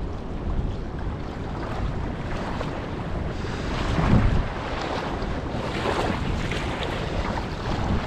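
Wind buffeting the microphone over the steady rush of a small, shallow river, briefly louder about four seconds in.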